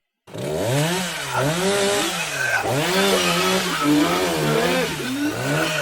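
Chainsaw revving up and down over and over, starting suddenly after a brief silence.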